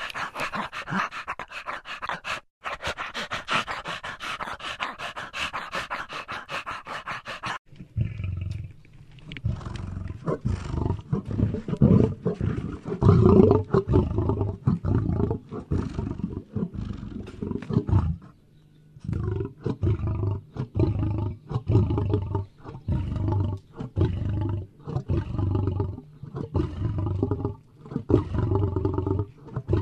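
A dog panting fast and steadily. After an abrupt cut about eight seconds in, a large animal gives a long series of deep, pulsing roaring calls with short breaks between them.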